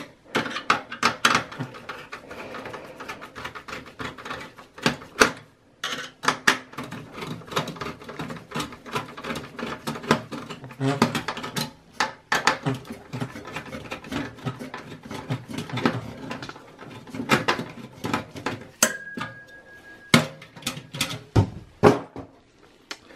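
Clicks, taps and knocks of a screwdriver and hands working inside a steel PC case as the CPU heatsink's screws are undone and the heatsink is lifted off the motherboard. A short steady high tone sounds for a second or so late on.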